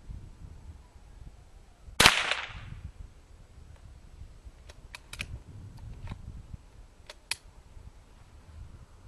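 A single shot from a Henry .22 LR lever-action rifle about two seconds in, sharp with a short ringing tail. Later come two small groups of light metallic clicks as the lever is worked to eject the case and chamber the next round.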